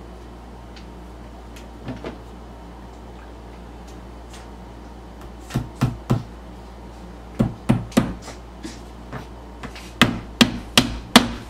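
Claw hammer tapping small nails into the wood panels of a cube organizer, tacking the corners with light strikes. The taps come in short runs of three or four, about a dozen in all, beginning about five seconds in.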